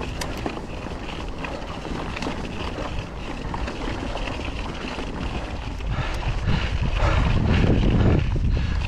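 Mountain bike rolling over a rough trail, with wind buffeting the camera microphone and scattered clicks and rattles. The low rumble and wind noise grow louder about six seconds in.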